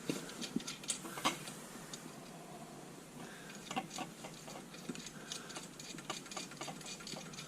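Scattered light metal clicks and taps from hitch hardware being handled as set screws are run in by hand against the tractor's lift arm.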